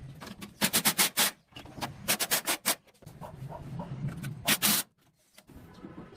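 Three short bursts of quick scraping strokes on a hard surface, a few strokes in each burst, with a single longer stroke near the end.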